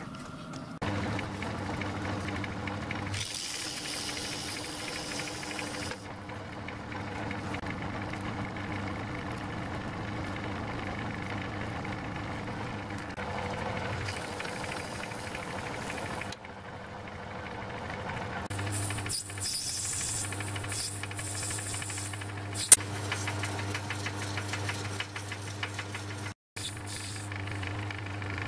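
A metal lathe running with a steady hum while a hand tool is worked against a small spinning brass part, adding a scraping hiss at times. A single sharp click about two-thirds of the way through is the loudest moment.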